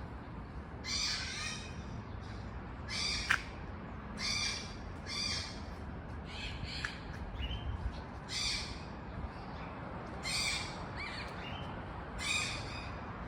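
Yellow-collared macaw giving harsh, raspy squawks, about eight short calls spaced one to two seconds apart, with a sharp click about three seconds in.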